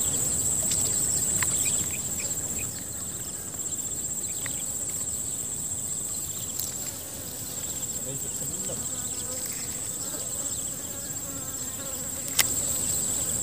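Insects chirring in a steady high-pitched drone, with one sharp click near the end.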